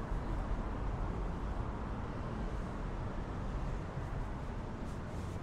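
Steady city street ambience: a low hum of traffic.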